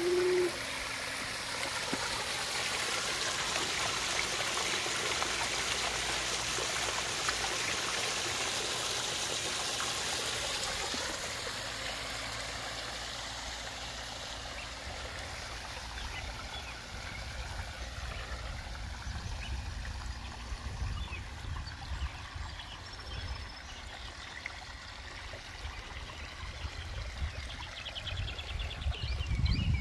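Small waterfall spilling over stacked flat stones into a koi pond: a steady splashing trickle, louder for the first ten seconds or so and softer after that. An irregular low rumble joins in the second half.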